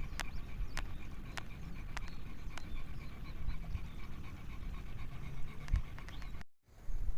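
A dog panting, with light sharp clicks about every half second.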